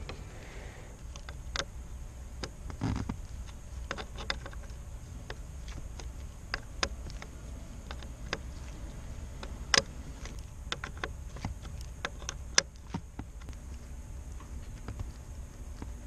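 Scattered small metallic clicks and taps of a wrench and loose metal parts working on the cable end fittings inside a Quicksilver gear and throttle remote control box. There is a dull thump about three seconds in and two sharper, louder clicks later on.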